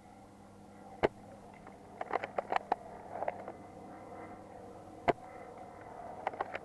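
Sharp snapping shots from airsoft replicas: a single shot about a second in, a quick run of four or five around two seconds, and another single shot near the end, over a steady low hum.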